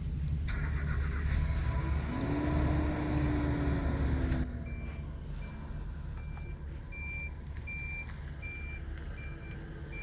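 A vehicle's engine rumbles, louder over the first few seconds with a slowly gliding whine. From about halfway a reversing alarm beeps steadily, a little over once a second.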